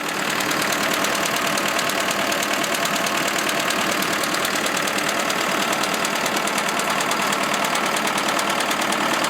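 Versatile 276's Cummins 4BTA 3.9-litre turbocharged four-cylinder diesel running with a rapid, regular knock. The knock comes from a connecting-rod bearing that has failed.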